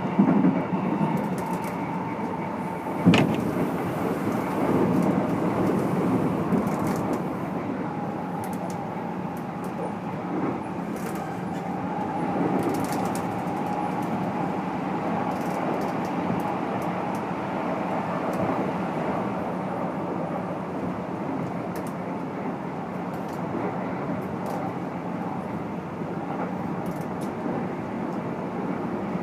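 Keikyu New 1000 series electric train running at speed, heard inside motor car DeHa 1449, whose MB-5121-A traction motors are fed by a Toyo IGBT VVVF inverter: a steady rumble of wheels on rail with a sharp knock about three seconds in. A faint steady whine comes in and fades through the middle.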